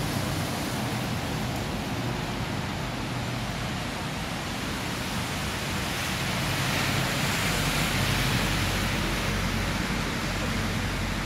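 Steady rushing noise of outdoor street ambience, growing a little louder about seven seconds in and easing off near the end.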